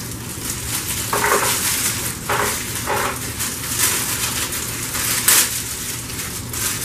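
Plastic packaging crinkling and crackling as a knife is worked out of its plastic sleeve and wrapping, in a string of irregular bursts.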